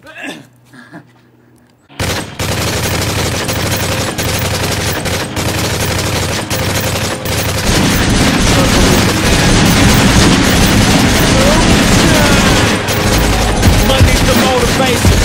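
A continuous barrage of rapid automatic gunfire sound effects, starting abruptly about two seconds in and growing fuller and louder from about eight seconds.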